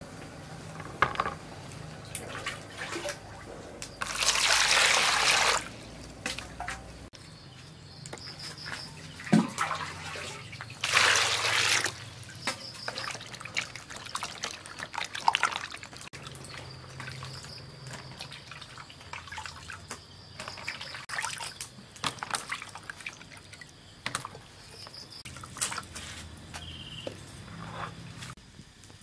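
Water poured into a plastic basin in two short gushes, with splashing and sloshing between them as hands wash peeled gourd pieces in the water.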